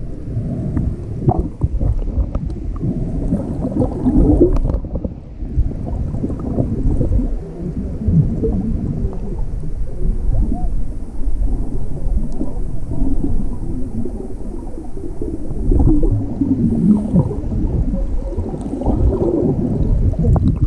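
Muffled underwater rumble of water moving around a microphone held beneath the surface, with bubbling and crackles from swimmers' movements.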